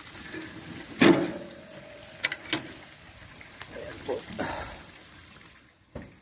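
Metal knocks and clicks from a stainless gas grill being handled, the loudest about a second in, ending with a sharp thud as the grill lid is shut near the end.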